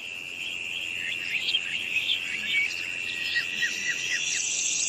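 Nature ambience: a steady high-pitched insect trill, cricket-like, with short falling chirps repeating over it. A thinner, higher shimmer joins near the end.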